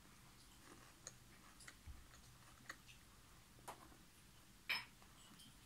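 Soft chewing and mouth clicks from someone eating with a full mouth: a handful of faint clicks over near silence, the loudest shortly before the end.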